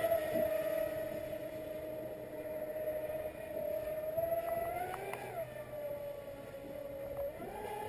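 Expresscraft Thunderbolt RC catamaran's fast brushless motor and 51 mm, 1.4-pitch propeller whining at speed across the water. The pitch settles a little lower at first, rises and drops back briefly about five seconds in, and climbs again near the end.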